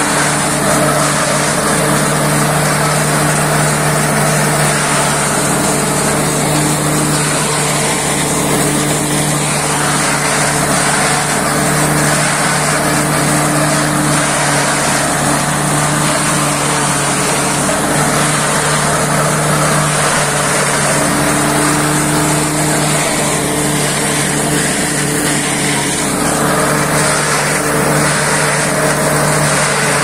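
Boslead silage harvester running steadily: a constant engine note with a dense mechanical noise over it, at an even level throughout.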